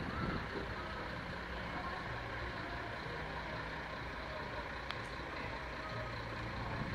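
Diesel engine of a coach bus running with a steady low hum as it rolls slowly past at close range.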